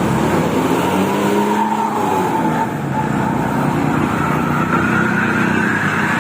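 Hino RK8 bus's rear-mounted diesel engine running under load, with a whine that dips slightly and then climbs steadily in pitch over the last few seconds.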